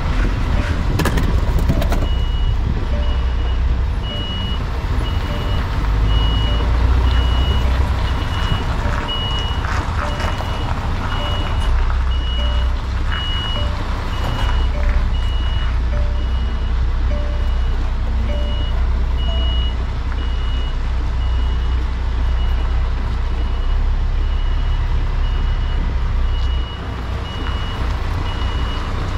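A vehicle reversing alarm beeps about once a second, over the steady low rumble of a lorry's diesel engine. A second, lower-pitched reversing beeper sounds over the first two-thirds.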